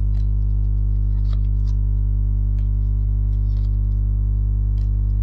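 Steady electrical mains hum: a loud, unchanging buzz made of a stack of low tones, with a few faint scattered clicks over it.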